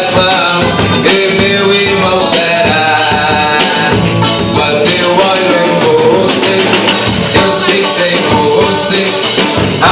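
Praise and worship song: a sung melody over guitar and percussion, loud and continuous.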